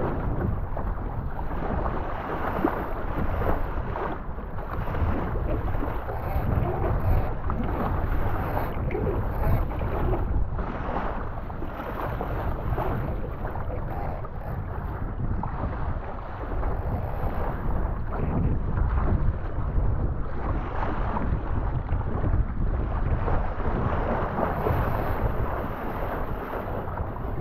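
Wind buffeting an action camera's microphone: a steady rushing noise that swells and dips in gusts, with no engine tone in it.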